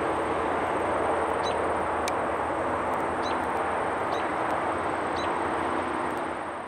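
Steady rushing outdoor noise with a few short, faint bird chirps over it, fading out at the very end.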